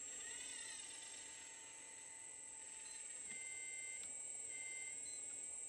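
Kabolite K970 RC excavator's electric hydraulic pump whining quietly as the arm and bucket work. The whine rises and falls in pitch near the start, then holds steady in short stretches in the second half as the valves open and close.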